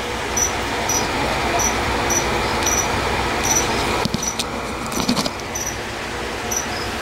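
Steady background hiss with a short, high chirp repeating about once a second. A brief patch of clicks and rustling comes about four to five seconds in as the plastic isopod tub is handled close to the microphone.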